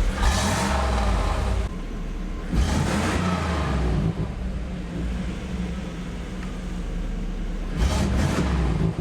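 Third-generation Camaro/Firebird engine idling through its newly reconnected exhaust, with the throttle blipped three times: right at the start, about two and a half seconds in, and near the end. The car is being run to check the exhaust for leaks.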